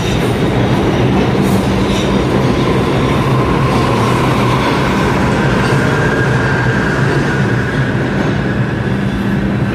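New York City subway train running steadily, with a rumble and rail clatter, and a faint wheel squeal through the middle.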